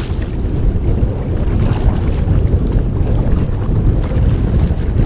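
Strong wind buffeting the microphone, loud and gusting without a break, over choppy lake water washing around canoe hulls.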